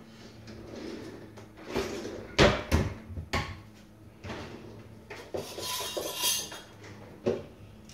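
Glasses and bowls being handled on a countertop: several sharp clinks and knocks, the loudest a little over two seconds in, with a brief rustling stretch before another knock near the end.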